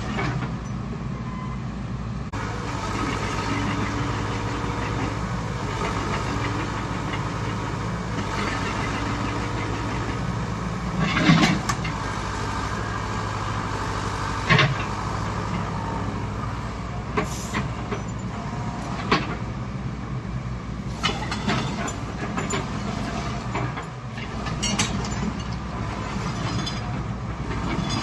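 A moving vehicle's steady rumble with a low hum, broken by scattered sharp knocks and clanks.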